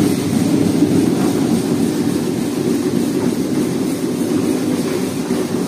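Peanut sorting machine running, its inclined stainless-steel tray shaking peanuts along: a loud, steady mechanical noise.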